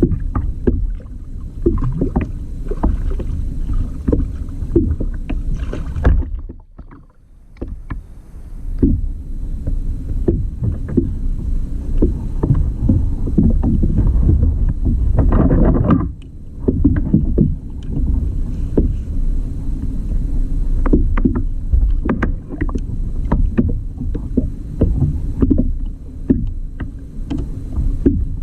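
Kayak on the sea: a steady low rumble of water and wind against the hull, with frequent irregular knocks and splashes. It goes quiet for about a second and a half near a quarter of the way in, and there is a louder splash a little past the middle.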